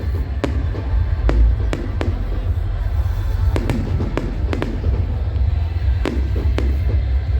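Fireworks exploding: sharp bangs and cracks at irregular intervals, sometimes two or three in quick succession, over a constant deep rumble.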